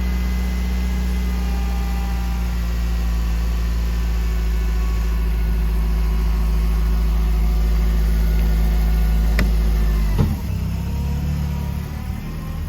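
Atlet all-terrain vehicle's engine running steadily. About ten seconds in there is a click and then a sharp knock, after which the engine note falls away.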